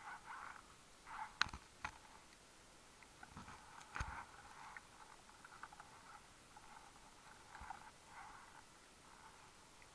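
Faint underwater sound heard through a dive camera's housing: patches of muffled crackling noise with a few sharp clicks, the loudest about one and a half seconds and four seconds in.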